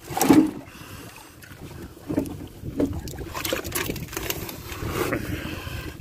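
Fishing net and catch being hauled into a small boat: a loud thump about a third of a second in, then scattered knocks and rustles of net and fish against the hull, with wind on the microphone.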